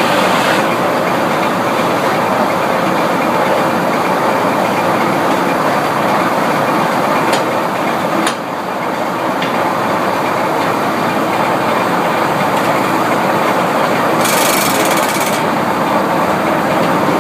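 Sawmill machinery running with a loud, steady mechanical din. A few sharp clacks come around the middle, and a brief hiss about fourteen seconds in.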